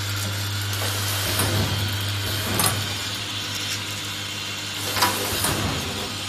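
Vibratory bowl feeder humming while the small plastic coffee degassing valves inside it rattle continuously as they feed toward the applicator. The hum weakens after about a second. The packing machine's mechanism clicks sharply twice, about two and a half and five seconds in.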